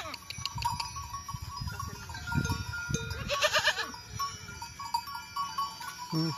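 Goat bleating once, a wavering call about three and a half seconds in, with small bells clinking now and then.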